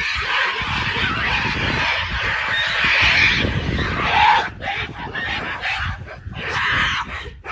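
Mountain gorillas screaming harshly during a fight between two silverbacks: a continuous din for about four seconds that then breaks up into shorter cries.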